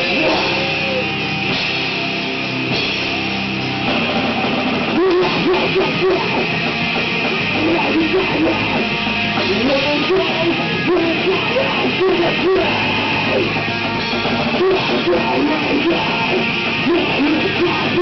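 A live rock band playing loud: electric guitars and a drum kit, with a repeating guitar riff. The drums come in harder about four to five seconds in.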